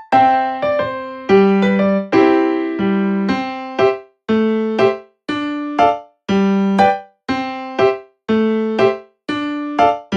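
Background music: a keyboard playing short phrases of struck notes that fade away, with brief gaps between the phrases roughly every second.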